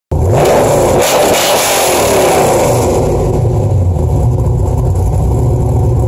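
Car engine running loud and revving, with gliding changes in pitch in the first couple of seconds over a steady deep rumble.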